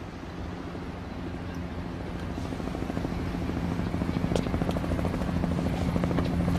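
Helicopter: a steady engine drone with a rapid rotor beat, growing gradually louder.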